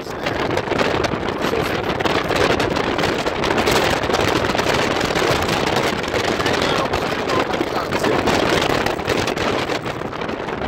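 Strong typhoon wind buffeting the microphone over heavy surf from storm-driven high waves, a dense steady rush that flickers with the gusts.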